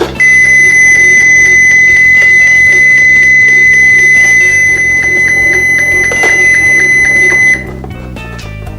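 DG 195 standalone keypad's built-in buzzer sounding one continuous high tone for about seven seconds, then cutting off suddenly: the keypad's anti-tamper alarm going off.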